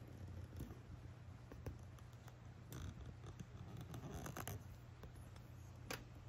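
Quiet room with a steady low hum, faint scratchy rustling twice around the middle, and a single sharp click near the end.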